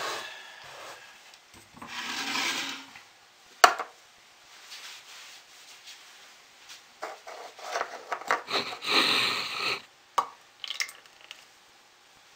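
Handling sounds of soap-making gear on a stone countertop: rubbing and scraping, with a sharp knock a few seconds in and a busy run of scrapes and clicks near the end, as plastic containers are shifted and titanium dioxide is added to a stainless steel pot of soap batter.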